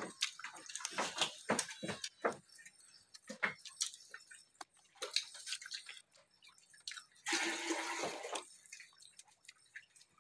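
Close-up eating sounds: wet chewing and lip smacks, many short clicks as food is bitten and eaten by hand, with a longer noisy wet stretch a little past seven seconds in.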